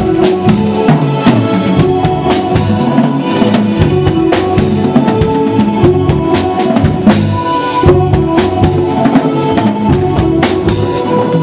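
Live jazz-funk band playing: a drum kit keeps a busy groove of snare and bass drum hits over sustained bass and keyboard notes, with a cymbal crash about seven seconds in.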